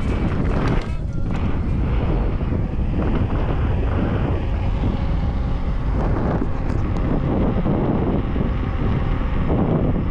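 Loud, steady wind buffeting the microphone, a dense low rumble with no clear pitch.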